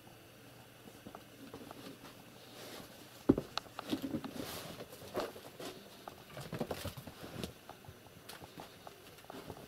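Cats moving about and playing: light pattering, rustles and scattered clicks, with one sharp thump about three seconds in.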